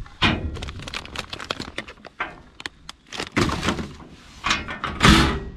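Trash being dropped into a bear-proof campground trash bin: crackling and knocking of the bag and bin, then a few louder bangs, the loudest about five seconds in.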